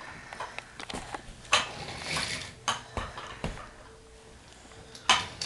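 Toy train track pieces and cars being handled, clattering and knocking together in a string of irregular clicks.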